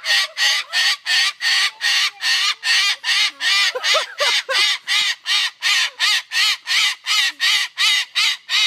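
A bird's harsh call repeated rapidly and evenly, about three times a second, ending abruptly.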